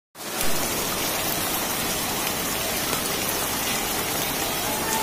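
Torrential rain falling steadily, a dense even hiss that cuts in abruptly just after the start.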